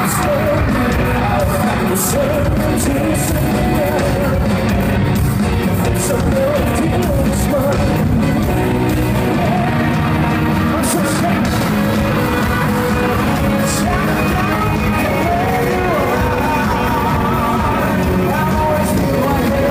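Live Korean rock band playing a loud song, electric guitar and drums under a male lead voice singing, heard from among the audience in a large concert hall.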